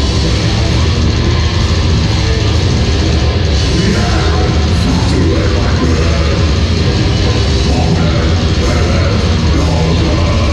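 Death metal band playing live: loud, distorted guitars, bass and drums in a dense, unbroken wall of sound.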